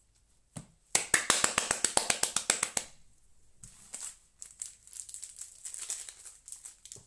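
Trading cards being handled: a fast run of sharp flicks, about ten a second for about two seconds, then softer rustling and crinkling as a foil booster pack is picked up.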